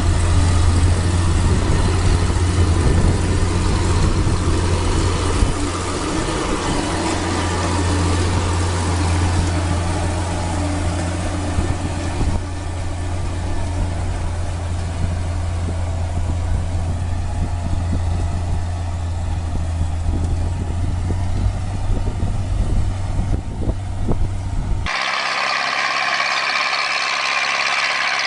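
A large vehicle engine running steadily with a deep hum. About 25 seconds in it cuts suddenly to a different, higher-pitched mechanical sound.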